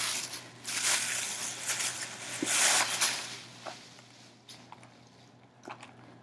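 Plastic carrier bag rustling and crinkling as a cardboard box is pulled out of it. The rustling stops about three seconds in, followed by a few faint taps as the box is handled.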